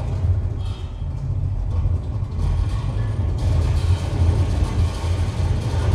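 Live noise music from homemade electronic circuits: a dense, steady low rumble with a grainy noise layer above it that thickens about three and a half seconds in.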